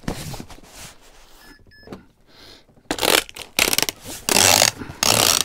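Packing tape pulled off its roll in several loud, crackling rips while a cardboard shipping box is taped shut, starting about halfway through.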